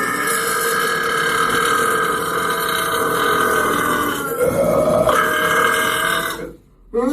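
A man's long, drawn-out burp lasting about six and a half seconds, its pitch wavering about four seconds in, then breaking off shortly before the next burp starts at the very end.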